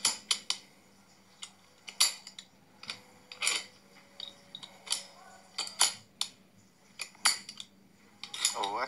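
The steel bolt action of a homemade .22 LR rifle being worked by hand: a string of sharp metallic clicks and clacks, one or two a second, as the bolt is slid and its handle turned.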